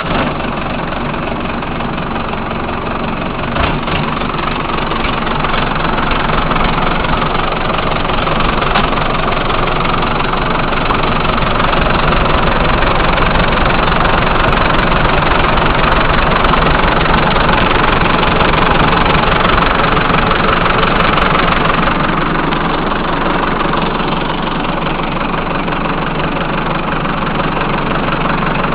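Case 580D backhoe's diesel engine running steadily at low speed just after starting, a dense, even engine sound that builds slightly over the first few seconds and settles.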